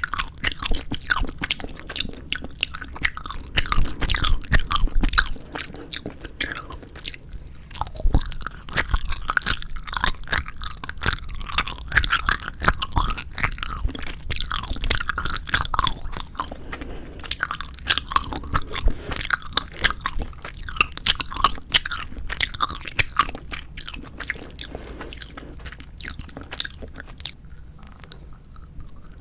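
Close-miked chewing of 4D jelly gummy candy: dense, irregular wet clicks and squelches of the sticky jelly, which thin out near the end.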